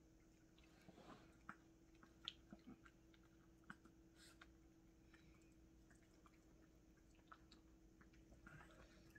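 Faint, scattered small clicks and smacks of Yorkshire terriers chewing mandarin segments, over a low steady hum.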